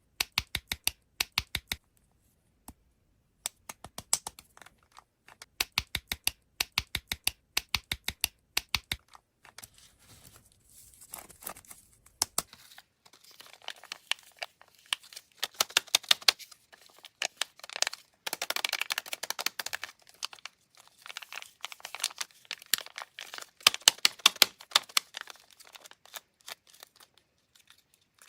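Rapid runs of sharp clicking taps for about the first twelve seconds, then crinkling and rustling of plastic candy wrappers being handled and opened.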